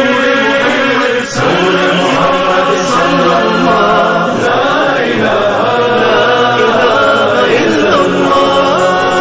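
Devotional vocal music: several voices holding long notes that glide gently up and down, with no words sung.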